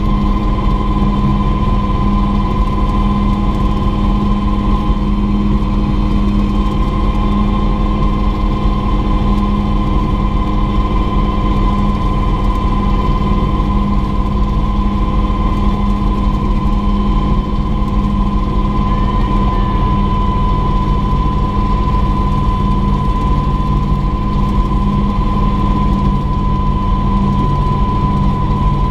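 Mosquito XET helicopter's small turbine engine running at a steady speed: a constant whine over a low rumble.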